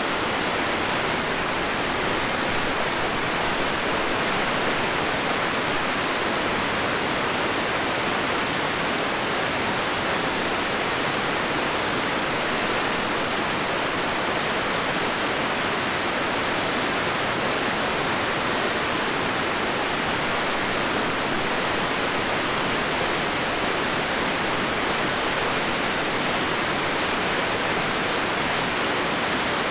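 Steady, unbroken rush of the Crystal River's falling water, a dense even hiss with no change in level.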